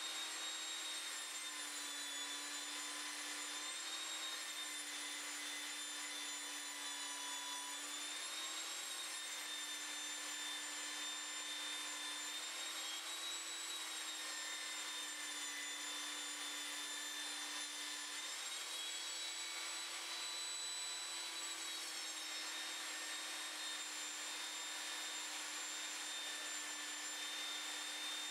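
Evolution Rage 5-S table saw running while a length of softwood is ripped along its fence. Its motor whine wavers slightly in pitch every few seconds as the wood feeds through, over a steady cutting hiss.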